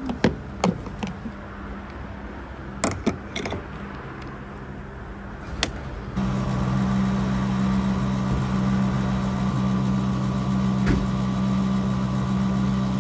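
A few clicks and knocks as a fuel nozzle is taken from a Tokheim fuel pump and put into a car's filler neck, then about six seconds in the pump's motor starts with a steady low hum as fuel is dispensed.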